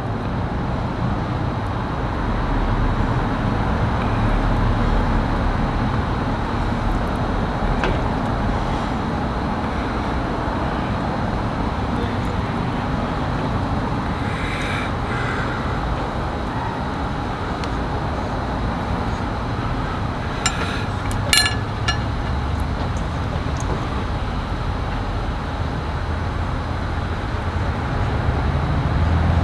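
Steady outdoor background noise, mostly a low rumble, with a few faint clicks about two-thirds of the way through.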